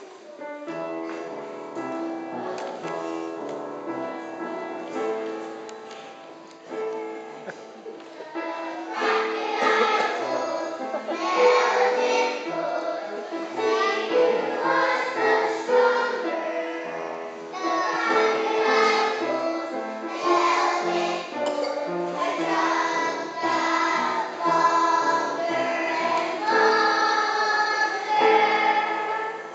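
Young children singing together as a class choir to a musical accompaniment; the singing gets louder about nine seconds in.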